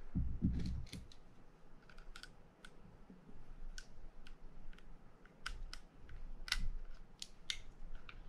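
Small irregular metallic clicks and ticks of a small screwdriver working a screw into the crosswind cover of a Penn Spinfisher 750SSM spinning reel, with a few soft low handling thumps in the first second.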